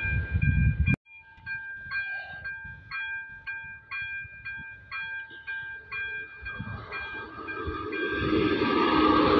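Level-crossing warning bell ringing in even strokes about twice a second, after a train's rumble cuts off suddenly about a second in. From about seven seconds an electric locomotive hauling coaches approaches, its rumble and motor whine rising until it drowns the bell.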